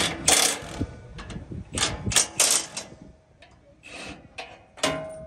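Metallic clinks and rattles of bolts and hand tools as a box truck's bumper is bolted back onto its frame bracket: about a dozen short, sharp clatters, with a brief faint ring after the last one near the end.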